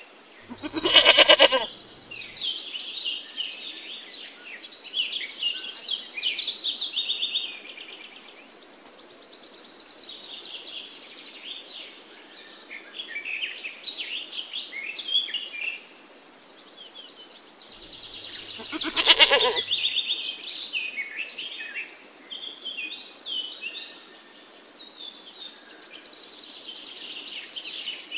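A goat bleats twice, once about a second in and again at about nineteen seconds, over birds chirping and singing throughout. The two bleats are the loudest sounds.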